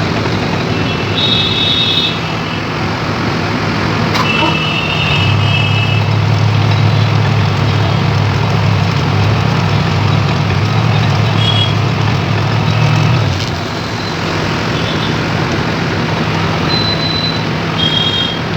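Excavator-mounted hydraulic vibratory pile driver and the excavator's diesel engine running during sheet pile driving. There is a steady low hum that swells louder about five seconds in and eases back about thirteen seconds in. A few brief high-pitched tones sound over it.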